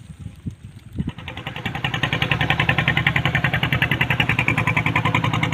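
A small engine starts up close by about a second in and runs steadily with a fast, even pulsing, getting louder over the next second and then holding.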